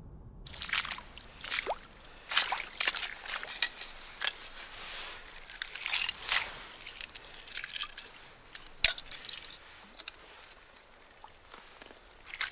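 Wet seaweed squelching and crackling, with mussel shells clicking against each other, as hands pull mussels off a seaweed-covered rock at low tide. The sound comes in irregular bursts, with one sharp click about two-thirds of the way through.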